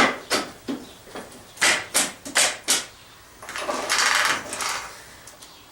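Metal tools clicking and knocking against a dirt bike chain, about seven sharp clicks, then a rough scrape of about a second and a half, while prying at a master link that the owner suspects is seized.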